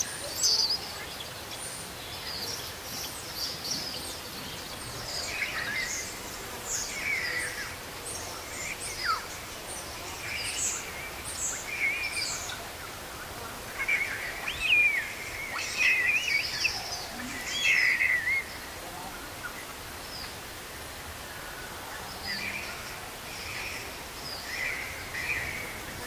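Scattered short, high chirps and whistled calls from wild animals over a steady outdoor background hiss, with a louder run of calls, some gliding in pitch, a little past the middle.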